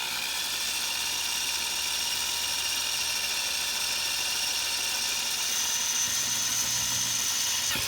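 Electric drill with a 9/64-inch bit running steadily in forward, drilling out the rivet post of a die-cast toy car, with a steady whine.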